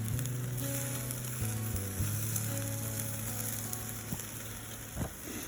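Food sizzling on a charcoal barbecue grill: a steady hiss with a few sharp pops near the end.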